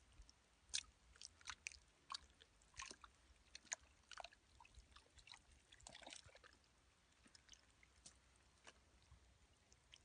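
Faint, irregular wet squelches and small clicks of a gloved hand groping and pressing through soft wet mud.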